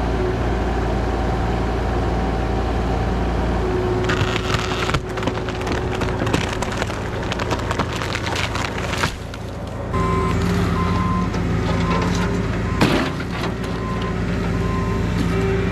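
Compact diesel equipment running steadily under load, with repeated sharp cracking and snapping of wood as trees and brush are pulled out and broken up. The sound comes in several cut-together shots.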